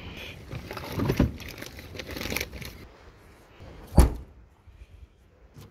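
Rustling and handling noise, with a single sharp thump about four seconds in.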